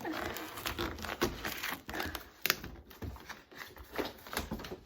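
Cardboard box packaging being pulled at, torn and crumpled by hand: irregular crinkling with knocks and clicks, and one sharp crack about two and a half seconds in.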